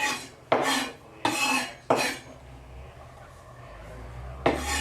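Kitchen knife scraping and knocking on a cutting board in five short strokes, one a little longer than the others, as the seeds and ribs are cut out of a pepper.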